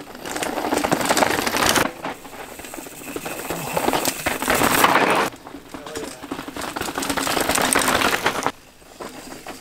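Mountain bike tyres crunching and crackling over loose rock and dirt as riders descend a rock garden, in three passes that each cut off abruptly.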